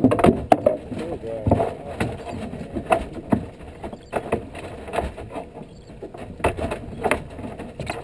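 Irregular knocks and thumps on a fishing boat's bow, with indistinct men's voices in the background.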